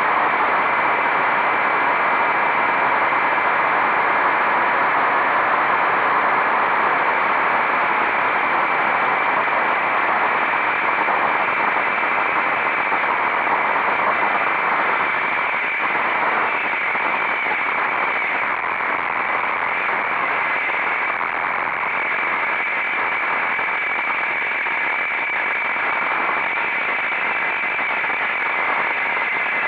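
Steady rush of wind and road noise from a motorcycle riding at speed, the engine buried under it.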